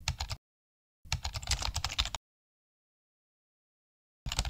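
Computer keyboard typing sound effect: rapid key clicks in three bursts, a brief one at the start, a longer one of about a second starting about a second in, and another starting near the end, with dead silence between.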